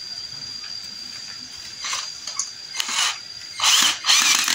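Cordless drill-driver run in about four or five short bursts in the second half, driving a screw on the circular saw's base plate.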